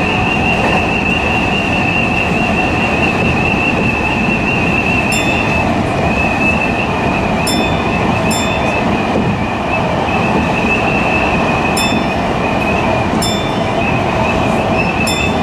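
Tokyu Toyoko Line electric commuter train running at speed, heard from the cab: a steady rumble of wheels on rail with a high, wavering whine held throughout and a sharp click every few seconds.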